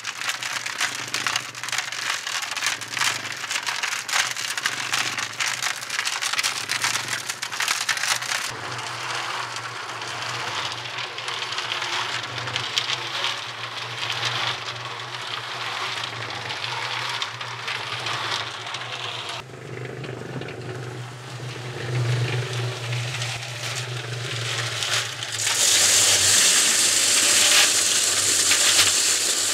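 Portable cement mixer running, with wet concrete and gravel tumbling and rattling in the turning drum over a steady motor hum. Near the end a louder rushing slide as concrete pours out of the tipped drum.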